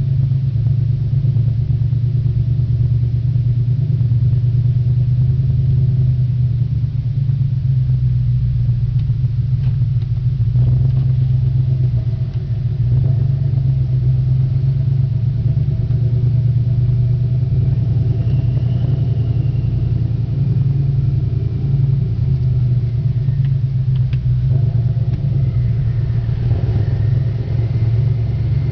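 Audi C5 RS6's twin-turbo 4.2-litre V8, fitted with catless downpipes and electric exhaust cutouts, idling with a loud, steady, deep rumble.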